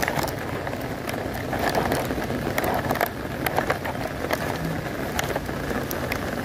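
Heavy rain falling steadily, with many sharp, irregular drop hits close to the microphone.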